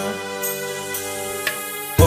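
Background music: a steady sustained drone-like chord with a couple of light strikes.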